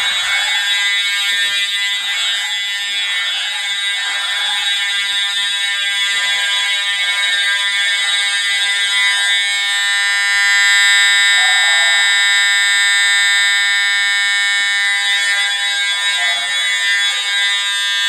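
Building fire alarm sounder going off with a continuous, unbroken buzzing tone, loud throughout and a little louder for a few seconds in the middle.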